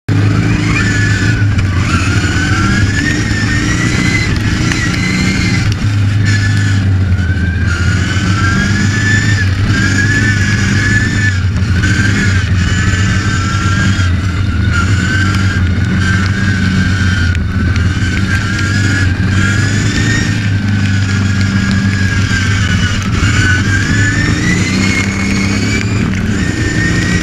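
Racing ride-on lawn mower's engine running hard, heard up close from a camera mounted on the mower, its pitch rising and falling again and again as the driver gets on and off the throttle round the track.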